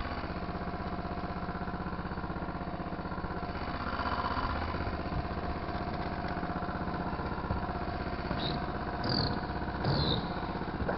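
Go-kart engine running at a steady pitch, heard from on board the kart, with two brief higher-pitched sounds near the end.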